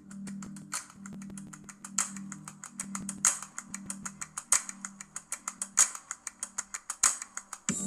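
A run of sharp, typing-like clicks that starts sparse and quickens to several a second, over a held low musical note that fades out and comes back near the end.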